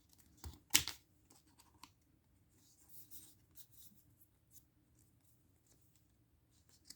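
Pokémon trading card being slid into a plastic card sleeve: a sharp click about a second in and a few light taps, then faint soft plastic rustling.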